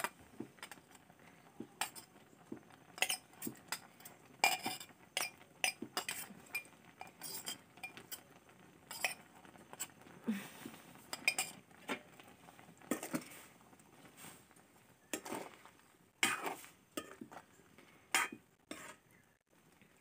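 Metal utensils clinking and knocking irregularly against a large metal cooking pot, with a short pour of water into the pot about halfway through.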